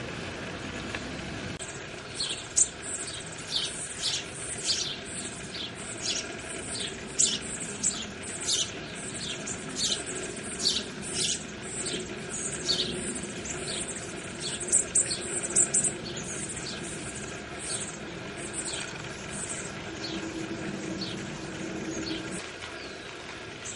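Bushtits giving a long run of quick, thin, high chirps, each falling slightly in pitch, starting about two seconds in and thinning out near the end, over a steady low background rumble.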